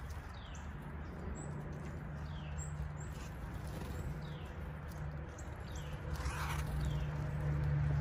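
Songbird calling outdoors: a thin downslurred note repeated about once a second, with a few short high chips, over a steady low hum.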